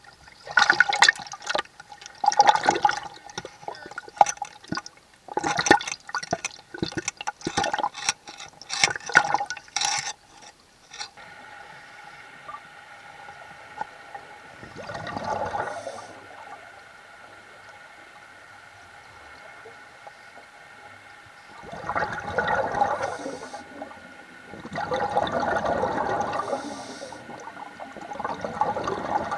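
Underwater sound of scuba diving: bubbling and rushing water, dense and choppy for the first ten seconds or so. After that come separate rushing bursts of a second or two, a few seconds apart, as exhaled bubbles leave a diver's regulator.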